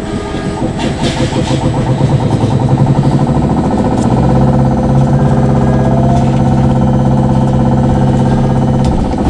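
Inside a moving VinLine trolleybus: the steady hum and whine of its electric traction drive over road noise, with a faint rising whine about six seconds in. The low hum cuts off shortly before the end.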